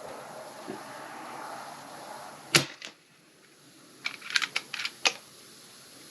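A .22 Hatsan Flash QE PCP air rifle fires once: a single sharp, loud pop, with a fainter click just after it. About a second and a half later comes a quick run of sharp metallic clicks as the action is cycled for the next pellet.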